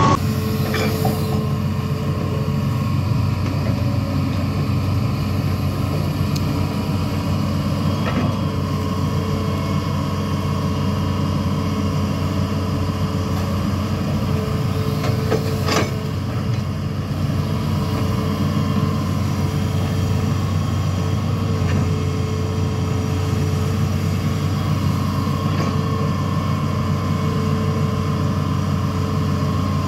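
Diesel engine of a Hitachi Zaxis 210F amphibious excavator running steadily under load while it digs, with one sharp knock about 16 seconds in.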